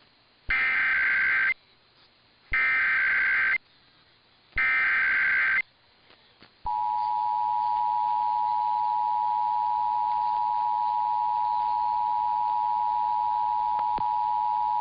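Emergency Alert System SAME header: three one-second bursts of warbling digital data tones, about a second apart. Then the two-tone EAS attention signal, a steady chord of two close tones held for about eight seconds, announcing a required monthly test.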